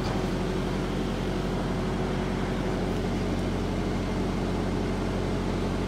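Engine of an engine-driven welding rig running at a steady speed: a constant low drone that does not change.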